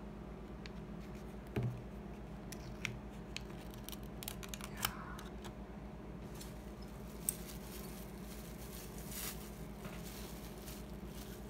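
Plastic food packaging and cling film being handled on a desk: scattered small clicks, taps and crinkles, with a soft thump about one and a half seconds in, over a steady low electrical hum.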